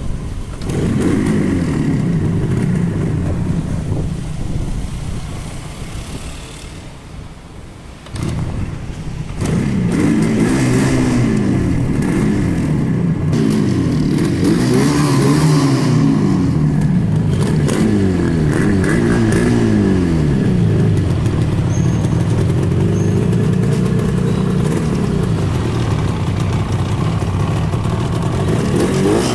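Rajdoot Yamaha RD350 in low-torque trim, its two-stroke parallel-twin engine running and being revved. It is blipped in repeated rises and falls, drops back quieter for a few seconds, comes up again about eight seconds in, and then holds a steadier, higher run near the end.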